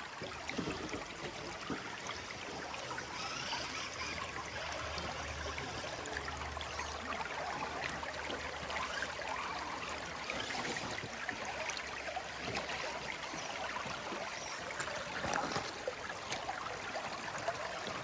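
A stream running and trickling over rocks, with a few short knocks and ticks scattered through it.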